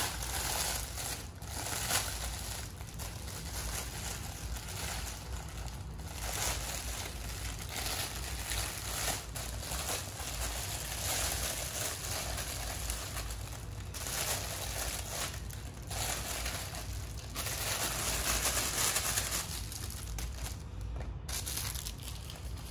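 Clear plastic bag crinkling and rustling on and off as a child pulls a rubber mask out of it.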